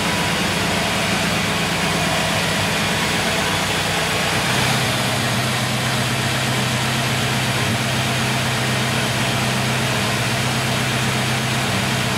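Fuel-injected LT1 V8 of a 1954 Chevrolet Bel Air restomod idling steadily. Its note changes slightly about four and a half seconds in.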